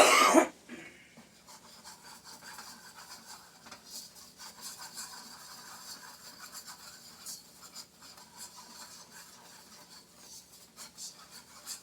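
A utensil stirring and scraping a flour-and-butter roux in a pot as the flour cooks, with a steady rubbing sound and small irregular ticks. A brief loud knock comes right at the start.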